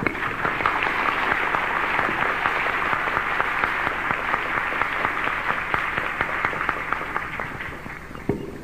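An audience applauding, a dense patter of many hands clapping that fades out near the end.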